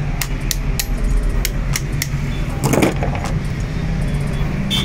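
Small metal parts of a starter motor's bendix drive clicking and clinking as they are handled and fitted on the shaft, with irregular sharp ticks over a steady low hum.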